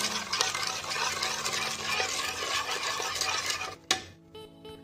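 A metal spoon stirs thick whisked yogurt in a bowl, making a wet, squelching swish with an occasional clink against the bowl. The stirring stops with a sharp click about four seconds in.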